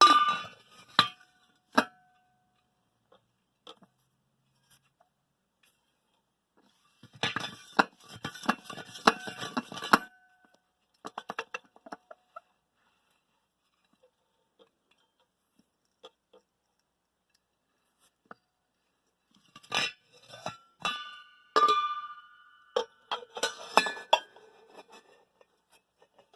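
Metal parts and tools clinking and knocking on a workbench in short clusters, with a few brief ringing metallic tones, between stretches of near silence.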